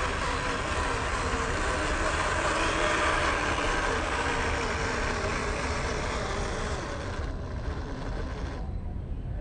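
Electric drive motor and gearbox of a WPL B16 scale RC truck whining steadily as it crawls along under load, towing a trailer heaped with cargo, with its tyres rolling over dirt. The higher hiss drops away about seven seconds in and the sound turns duller.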